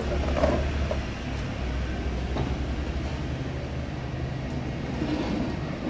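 Steady low background rumble, with a single light knock about half a second in.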